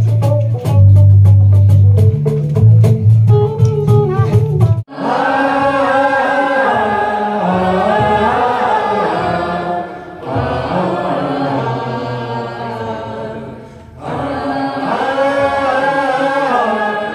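Live band music for about five seconds, with heavy bass notes and drum hits, then an abrupt cut to a live acoustic group where several voices sing together in harmony.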